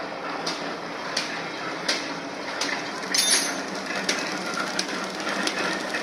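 Automatic paper bag making machine running: a steady mechanical clatter with a sharp knock repeating about every three-quarters of a second. About three seconds in there is a brief louder rattle.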